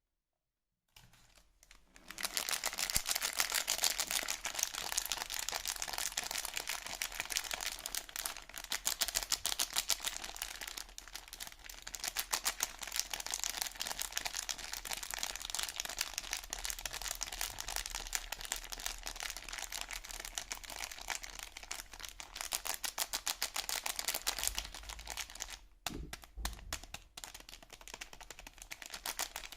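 Soap packaging being handled and unwrapped, a dense run of crinkling and rustling with many small crackles. It starts about two seconds in and pauses briefly near the end before going on.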